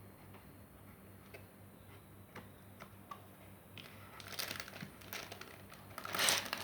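Toy gun's packaging being opened by hand: a few light clicks and taps, then crinkling packaging that grows louder from about four seconds in.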